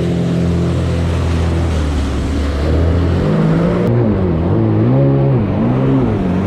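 Jet ski engine running loudly at a steady pitch, then revving up and down several times as the throttle is worked in the second half.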